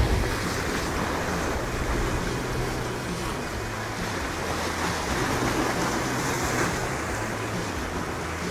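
Sea waves surging and washing over shore rocks, with wind blowing across them and a steady low hum underneath.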